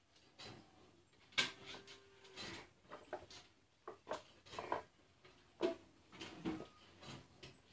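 Steel milk pot knocking and clanking as it is handled and set down under a cow, the loudest knock about one and a half seconds in ringing briefly. Then a run of short irregular knocks and clicks as hand-milking into the pot begins.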